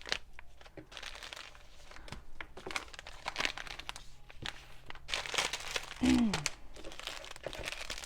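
Packaging being handled: crinkling and rustling of wrapping and tea packets as they are lifted out of a subscription box, in irregular bursts. A brief falling voice sound about six seconds in.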